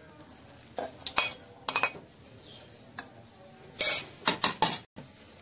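A metal spoon scraping and clinking against a ceramic plate and a metal mixing bowl as minced meat is scraped off the plate: a few sharp clinks in the first two seconds, then a quick run of several near the end.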